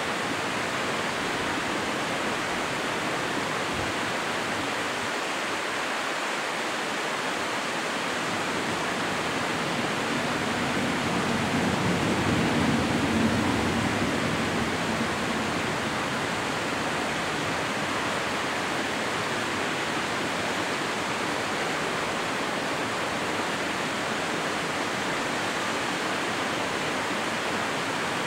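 Steady rush of a mountain river's flowing water. A deeper rush swells and fades about halfway through.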